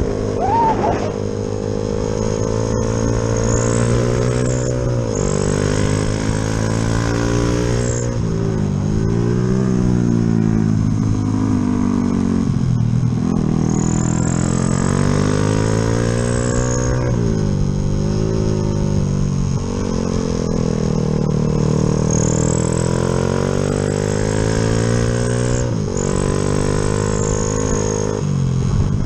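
Yamaha Jupiter MX single-cylinder four-stroke engine, bored up with a 72 mm piston, pulling and easing off while riding: the note rises and falls over and over, with several sudden drops in pitch as it shifts or closes the throttle.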